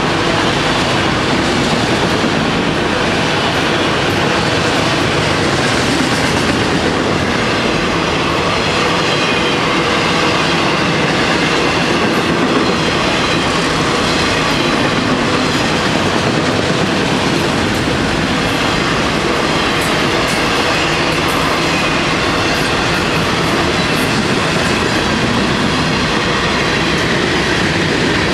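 Freight train cars rolling past close by: a loud, steady rumble and clatter of steel wheels on the rails, with no locomotive heard.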